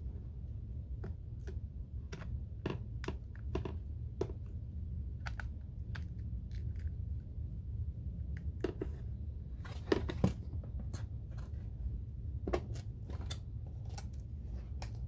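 Scattered small clicks and taps of tools and phone parts as the iPhone's screen flex cables are pressed back onto their connectors, over a steady low hum.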